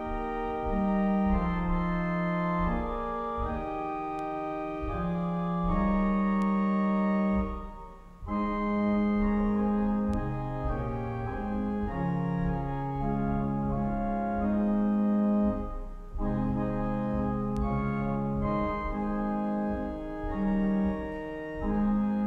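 Church organ played slowly in sustained, held chords, the phrases breaking off briefly about eight and sixteen seconds in.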